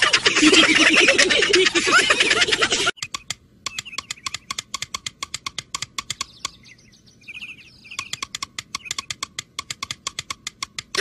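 A loud burst of high, chattering, cartoon-like voices that cuts off sharply about three seconds in. It is followed by quick, even ticking, about five ticks a second, with a few short chirps near the middle.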